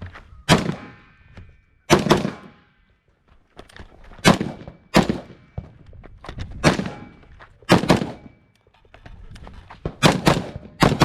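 Rifle shots fired one at a time on a timed practical rifle course of fire: about nine sharp reports at an uneven pace, mostly one to two and a half seconds apart, with a quick pair near the end. Each report has a short ringing tail.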